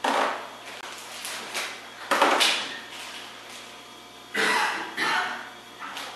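Hard plastic Beyblade toy parts and launcher being handled and set down on a plastic stadium: five short clattering handling sounds, the loudest about two seconds in.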